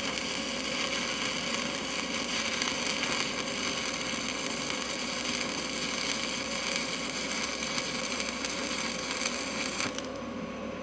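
Stick-welding arc on a 7018 electrode running a bead: a steady hissing, crackling arc noise that cuts off suddenly about ten seconds in as the arc is broken.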